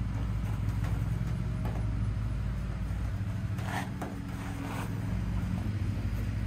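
A steady low mechanical hum, like a motor running, throughout. A few short scrapes and clicks come about halfway through as a small plastic fan is pressed and moved against the coop wall.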